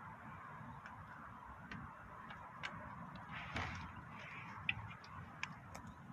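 Light, irregular metallic clicks and ticks from a park swing's hanging fittings as it sways, over a low rumble. There is a brief rustle about three and a half seconds in and a sharper click a second later.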